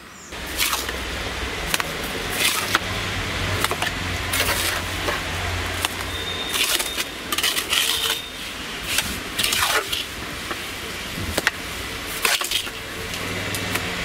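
Hand building work on a brick oven: a run of irregular scrapes, knocks and metallic clinks, over a low steady hum that is strongest in the first half.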